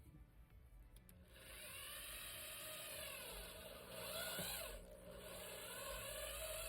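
Power drill running in two spells, starting about a second in with a short break near the five-second mark. Its whine rises and falls in pitch as the speed changes, drilling into the car's fender.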